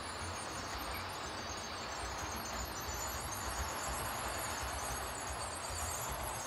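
Model train running on the layout's track: a steady, even noise with a low rumble underneath.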